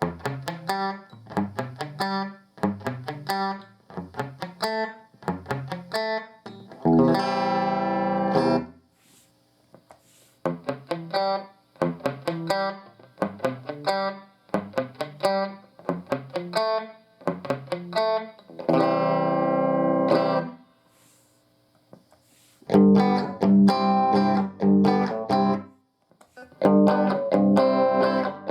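Electric guitar played through a Fender tube combo amp: picked single-note phrases and arpeggios, with a held strummed chord about seven seconds in and again near twenty seconds, then chopped chords toward the end.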